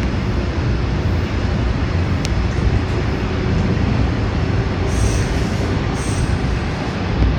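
Toronto subway train running through a tunnel, heard from inside the car: a steady rumble of wheels on rail and running gear.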